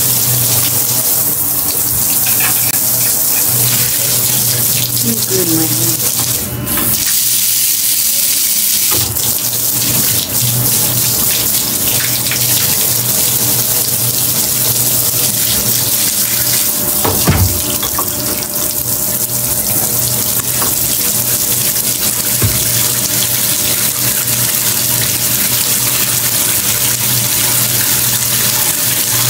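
Water spraying steadily from a handheld shower head into a bathtub. A single knock about seventeen seconds in.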